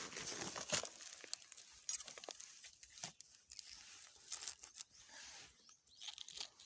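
Dry rustling and crinkling of leaves and stems, with scattered snaps and clicks, as krachiao (Siam tulip) plants are handled and their buds picked.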